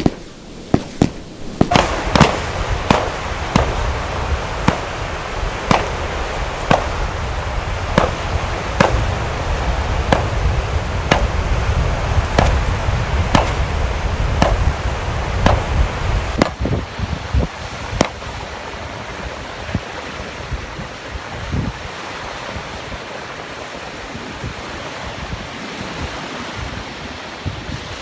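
Fireworks going off in a rapid series of sharp bangs, about one or two a second, that thin out to a few last bangs around two-thirds of the way through. A steady rushing noise runs underneath and is all that is left near the end.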